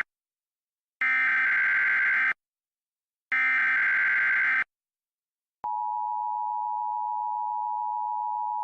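Emergency Alert System tones. The tail of one burst of buzzy digital data tones (the SAME header) is followed by two more, about a second apart. Then, a little past halfway, the steady two-tone attention signal starts and holds.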